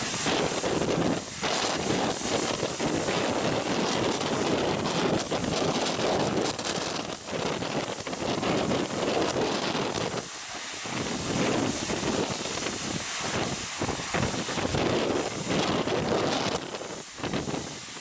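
Strong gusting wind buffeting the microphone over the rush of storm waves breaking on a harbour breakwater and water cascading down its wall, the noise dipping briefly a few times.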